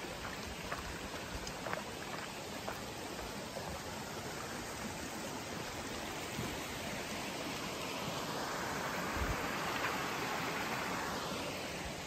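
Small stream running, a steady rush of water that swells for a few seconds near the end and then fades again.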